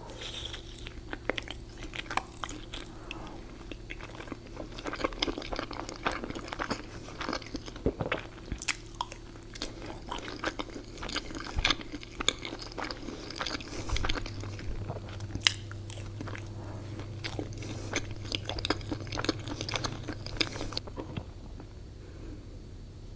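Close-miked eating: a person biting and chewing food, with many crisp, crunchy clicks that die down about two seconds before the end, over a faint steady hum.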